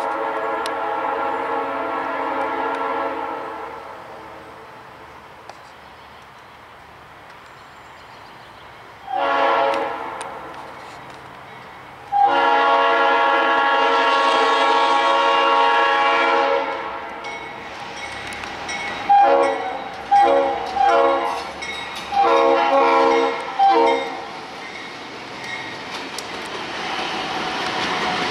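Diesel locomotive air horn sounding a chord in several blasts: a long one, a short one, another long one, then a quick run of short toots. Near the end the rumble of the passing train builds up.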